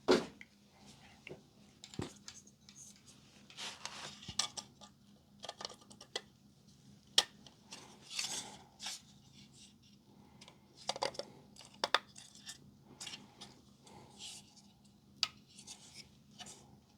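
Circuit boards and small parts of a Xeltek SuperPro 6100N chip programmer being handled and fitted onto its board stack: scattered sharp clicks and taps with short bouts of scraping, a few clicks louder than the rest.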